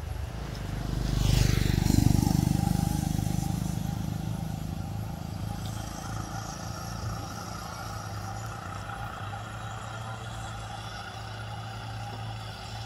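A motor vehicle passes along the road, swelling to its loudest about two seconds in and then fading, over a steady low engine hum.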